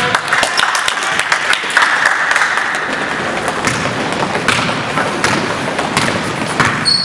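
Basketball bouncing and thudding on the gym floor, sharp irregular knocks over a steady hubbub of voices in the gym.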